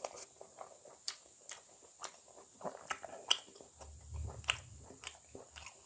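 A person chewing egg curry close to the microphone, with irregular wet mouth clicks and smacks. There is a brief low rumble about four seconds in.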